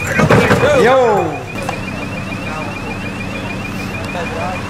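Voices shouting with swooping, falling pitch for about the first second and a half. Under them, and on after they stop, a steady, fast, high chirping repeats about six times a second.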